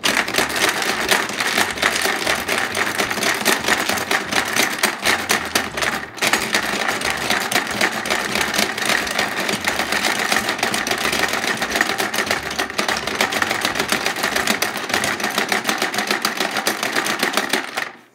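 Hungry Hungry Hippos Dino Edition board game in play: the plastic dinosaur heads clack rapidly and continuously as two players pound the levers, with marbles rattling across the plastic board. The clatter dips briefly about six seconds in and stops abruptly near the end, when the marbles are all gobbled.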